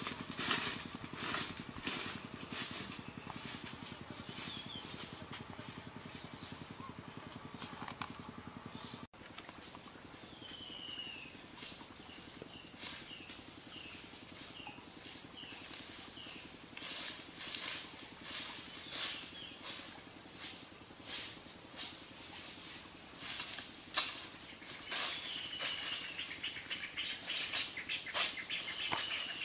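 Small birds chirping repeatedly with short, high, falling calls, over scattered short knocks. The sound cuts off abruptly about nine seconds in, then the chirping carries on.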